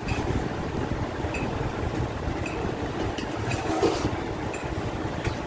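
Boiled rice being scooped out of an aluminium cooking pot, with faint scrapes and clinks of metal on metal, over a steady low rumble.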